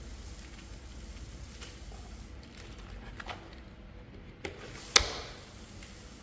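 Faint handling noises on a skateboard deck with a few light taps, and one sharp knock about five seconds in.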